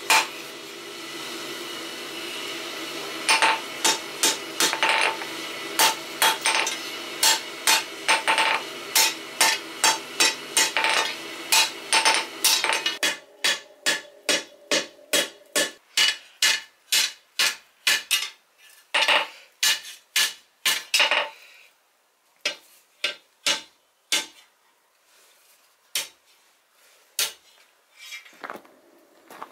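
Hand hammer striking red-hot 32 mm rebar over the anvil horn to bend it. The blows come at about two a second, each with a short metallic ring, and grow sparser near the end. A steady hum runs under the first half.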